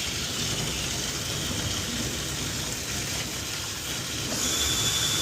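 Plumbing soldering torch flame hissing steadily on a copper pipe joint, with a faint high whistle joining about four seconds in.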